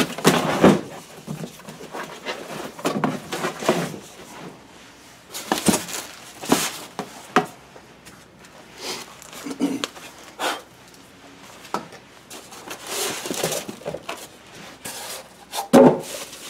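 Unboxing handling noise from a cardboard box, foam packing blocks and plastic bubble wrap: irregular rustling, scraping and light knocks, with a louder knock near the end.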